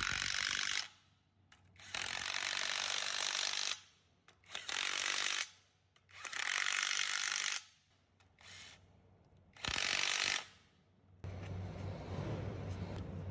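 Cordless impact wrench running down the bolts of a gear reducer's housing cover, in about five short runs of a second or so each with quiet gaps between. From about 11 s a steady low hum takes over.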